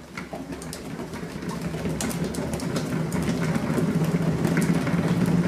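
Upright cat exercise wheel spinning as a kitten runs inside it: a steady rolling rumble with scattered clicks that grows louder throughout.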